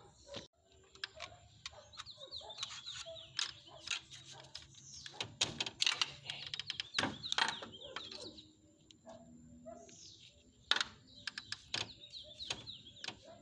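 Scattered sharp clicks and knocks of hands and a tool working at a diesel engine's timing belt tensioner while its locking pin is pulled, with birds chirping in the background.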